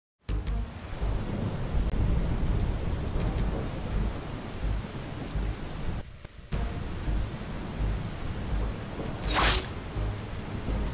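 Thunderstorm: steady rain with rumbling thunder, which drops out briefly about six seconds in, and a sharp crack of thunder about nine and a half seconds in.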